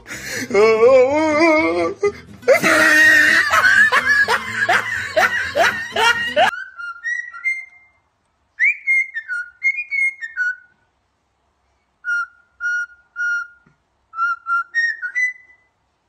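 Loud, wavering squeals for about six seconds, cutting off abruptly. Then a cockatiel whistling a tune in short clear notes, some held level and some sliding upward, in several phrases separated by pauses.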